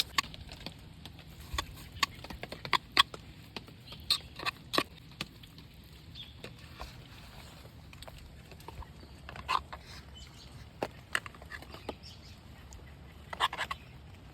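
Eating from a metal Stanley cup: irregular clicks and short scrapes of a utensil against the metal cup, with close-up chewing.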